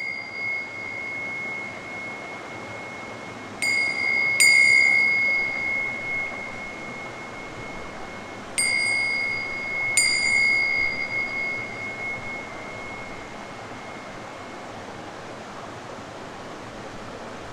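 A small high-pitched bell struck four times, in two pairs about five seconds apart, each ring fading out over several seconds. Underneath is the steady rush of river water.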